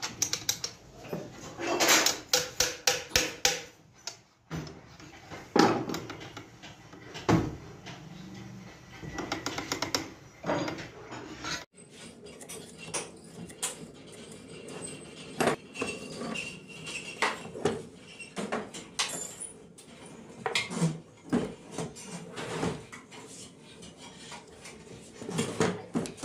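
Metal clinks, knocks and rattles of steel parts and hand tools against a sewing machine head as its shafts and mechanisms are fitted, with a quick run of rattling strokes about two seconds in.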